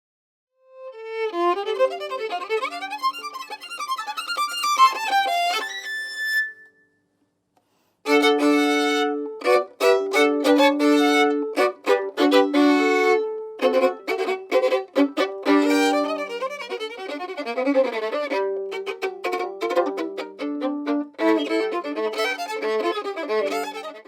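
Solo violin playing melodic passages with vibrato, in two excerpts separated by a sudden break of about a second, seven seconds in.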